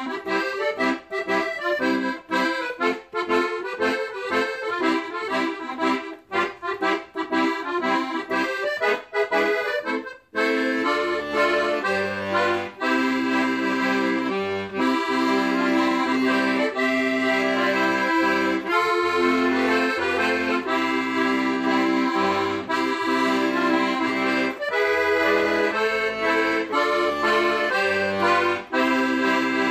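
Accordion music: quick, rhythmic chords for about the first ten seconds, then, after a brief break, a passage of held notes over a bass line.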